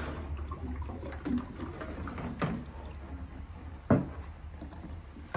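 Water sloshing and gurgling in a plastic water jug as it is lifted out of a plastic bucket waterer, with a few hollow plastic knocks, the loudest about four seconds in.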